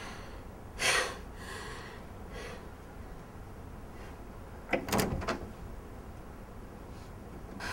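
A door being opened: a sharp clunk of the handle and latch about five seconds in, with a softer knock about a second in.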